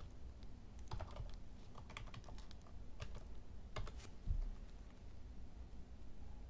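Typing on a computer keyboard: a short run of separate keystrokes, then a dull thump about four seconds in.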